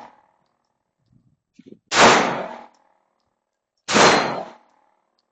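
Airsoft rounds striking steel targets: two loud metallic clangs about two seconds apart, each ringing briefly as it fades, with the tail of an earlier clang dying away at the start.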